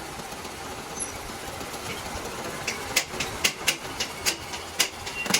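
Steady hum of workshop machinery, with a series of about seven sharp metallic knocks at irregular intervals in the second half, some ringing briefly.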